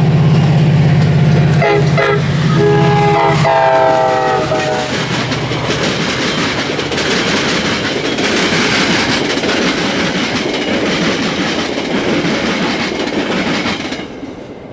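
Metra MP36PH-3S diesel locomotive passing at speed with its engine drone. It sounds its horn: a short blast, then a longer one that drops in pitch as it goes by. The bilevel coaches then rumble and clack over the rails until the cab car passes and the sound falls away near the end.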